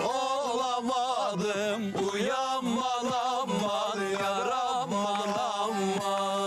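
Turkish folk music: an ornamented, wavering melody over a steady low note, settling on a long held note near the end.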